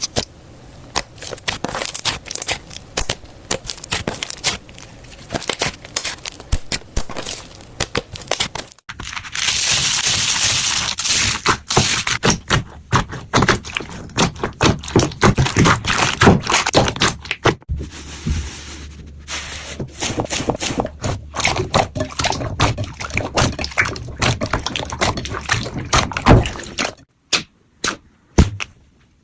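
Slime being squished and pressed by hand, giving a fast stream of sticky pops and crackling clicks. It has a denser crackling stretch partway through and cuts off abruptly near the end.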